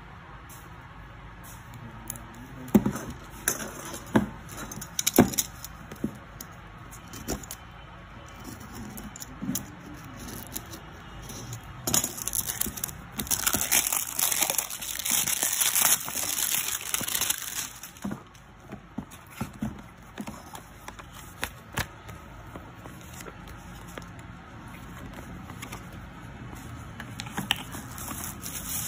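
Plastic shrink-wrap crinkling and crackling as it is peeled off a cardboard phone box, with sharp taps and knocks of the box being handled. The crinkling is loudest and densest in the middle, then gives way to softer handling of the opened box.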